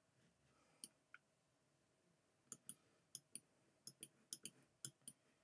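Faint, irregular clicking of a computer mouse: a couple of clicks about a second in, then about ten quick clicks, often in pairs, through the second half.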